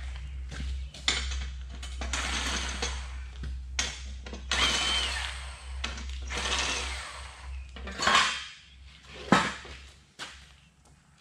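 Cordless power tool driving bolts into steel radiator support brackets, run in several bursts of a second or two with a short motor whine. Two sharp metallic knocks come near the end.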